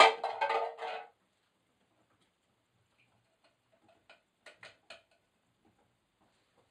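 Empty steel cat-food tins clattering for about a second, then a few light ticks and knocks about four seconds in as a fresh tin target is hung on its string.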